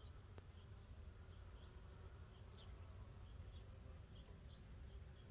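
Near silence with faint insect chirping outdoors: short, high chirps repeating about twice a second.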